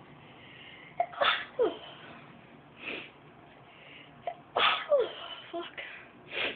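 A woman sneezing: two loud sneezes, the first about a second in and the second past the middle, with shorter breathy sounds between and after. The sneezes are set off on purpose by tickling inside her nose.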